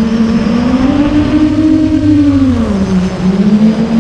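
A 9-inch FPV quadcopter's motors and propellers buzzing loud and close in flight. The pitch climbs in the first second, holds, dips near the three-second mark and rises again as the throttle changes.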